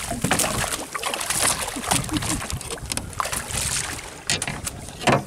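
Water splashing at the side of a small fibreglass boat as a hooked sailfish thrashes alongside and is hauled aboard, with scattered knocks and a sharp knock about five seconds in.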